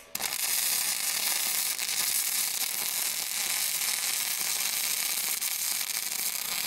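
MIG welding arc laying a first pass on steel with .030 wire at 22.4 volts and 531 inches a minute: a steady, crackling sizzle that strikes up abruptly just after the start and holds without a break.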